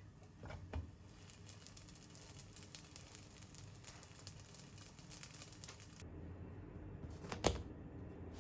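Crinkling with many small crackles for about five seconds, then a single sharp knock near the end.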